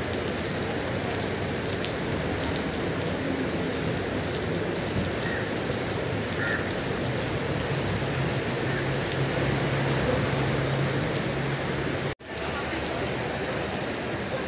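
Steady heavy rain falling on wet stone paving tiles, a continuous even hiss of drops. A low steady hum runs under it through the middle, and the sound drops out for an instant near the end.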